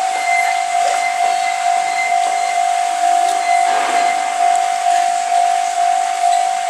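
Japanese railway level-crossing warning bell ringing, one steady tone repeating in quick, even strokes.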